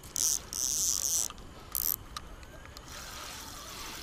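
Fishing reel's clicking ratchet, heard in several short high-pitched bursts while a hooked fish is played.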